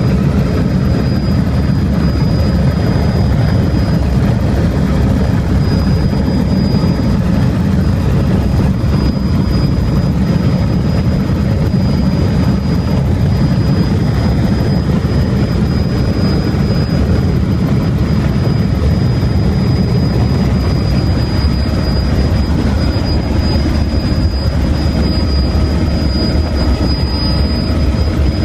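Helicopter in flight heard from inside the cabin: the steady drone of the rotor and engine, with a thin high whine held throughout.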